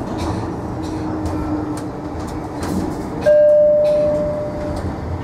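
Tyne & Wear Metro train running, a steady rumble with wheels clicking over the rails. About three seconds in, a loud single-pitched tone sounds suddenly and fades away over about a second and a half.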